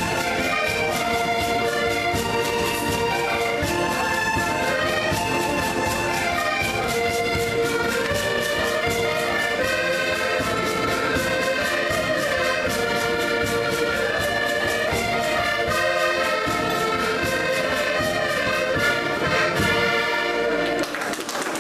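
An ensemble of accordions playing a lively folk tune together, melody over a steady chord-and-bass pulse. The tune ends near the end.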